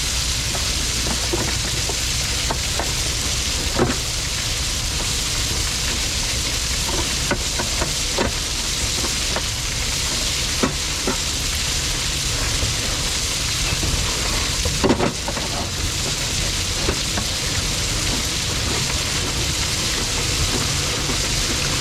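Motorized rail maintenance equipment running: a steady engine rumble under a loud hiss, with occasional clicks and knocks, the loudest about fifteen seconds in.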